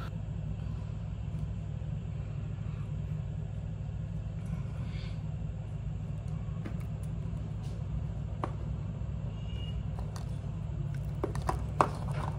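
Steady low rumble of background noise, with a few faint clicks of handling and one sharper knock near the end.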